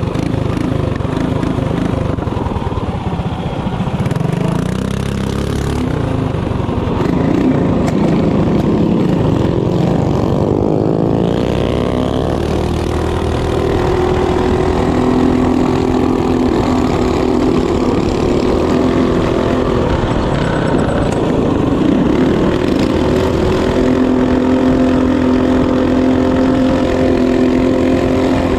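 Mini bike's small single-cylinder engine running hard under the rider, at full throttle down the straights and easing off for the turns. Its pitch swings sharply about ten seconds in, then holds high and fairly steady with brief dips.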